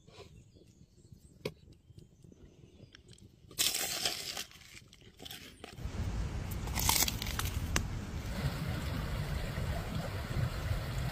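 Crisp roasted food crust crunching and crackling as it is broken apart by hand, loudest about seven seconds in. A steady rush of a stream runs underneath from about halfway through.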